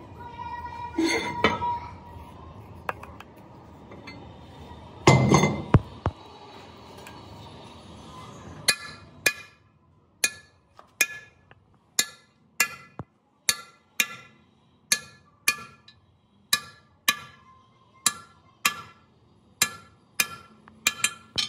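Repeated hammer blows ringing on metal, about one and a half a second, starting about nine seconds in. Before them there is a steady tone and one heavy thud about five seconds in.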